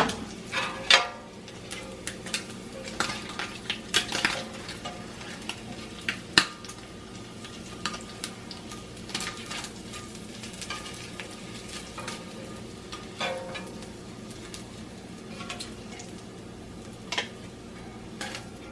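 Kitchen utensils clinking, knocking and scraping against pans and plates as breakfast is served up, busiest in the first several seconds and sparser after. A hot pan sizzles faintly underneath, over a steady low hum.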